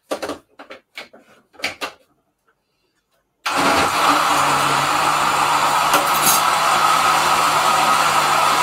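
A few light knocks and clicks from handling the blender jug, then about three and a half seconds in a countertop blender's motor switches on abruptly and runs at a loud, steady high speed, blending broccoli and apple into juice.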